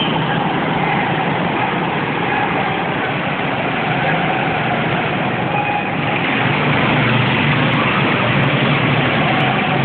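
Go-kart engines running as karts lap the track, getting louder about six seconds in as two karts come past close by.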